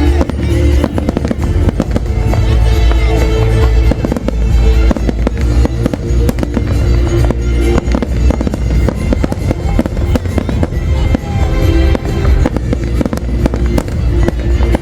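Fireworks display going off non-stop: a dense, continuous run of booms and crackling bangs over a deep rumble, with music playing alongside.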